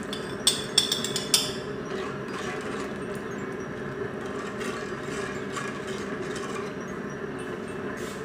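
A metal spoon clinking sharply against a glass bowl a few times in the first second and a half as ground peanuts are scraped out into the pan, then light scraping of the spoon stirring the sauce in the pan, over a steady background hum.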